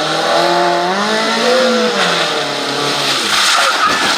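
Suzuki Swift rally car's engine revving hard through a corner. Its pitch climbs and then drops at a gear change about two seconds in, and a louder rush of noise follows as the car passes close near the end.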